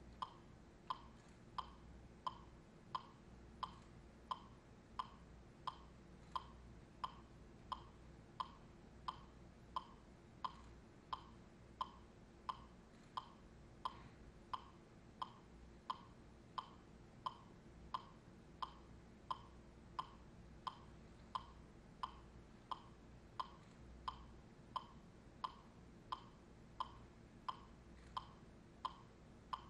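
A steady, evenly spaced click beat, a little under two clicks a second, keeping time for the dancers, over a faint low hum.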